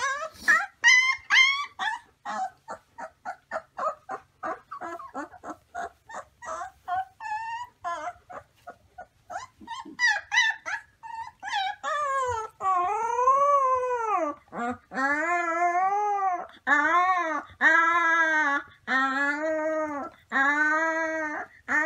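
A puppy whimpering and yipping in rapid short cries, about three or four a second, then, from about halfway, howling in a string of short arched howls, each rising and falling in pitch, about a second apart.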